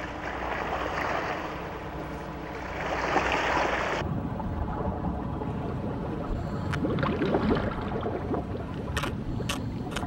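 Sea water rushing and splashing against a small boat under way, swelling about three seconds in and then cutting off abruptly. A quieter low rumble follows, with a few sharp knocks.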